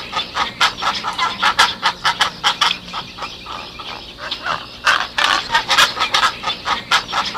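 Poultry calling: a dense string of short, rapidly repeated clucking calls from several birds.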